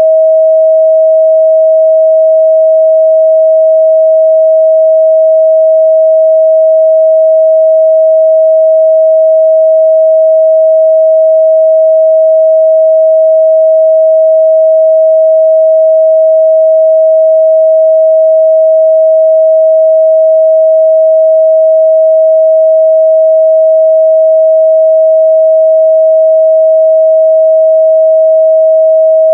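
A steady, loud 638 Hz sine-wave test tone, one pure pitch held without change.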